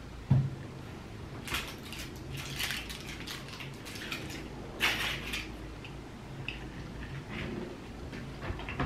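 A ceramic mug set down on a desk with a single thump, then a plastic snack wrapper crinkling on and off for about four seconds as it is opened, followed by a few light ticks and rustles.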